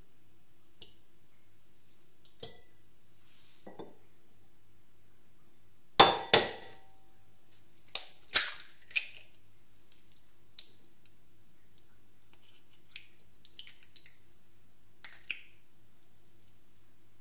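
A raw egg knocked against the rim of a glass bowl to crack its shell: sharp clinking knocks, the loudest pair about six seconds in with a brief ring, then three more around eight to nine seconds, and a few lighter clicks of shell.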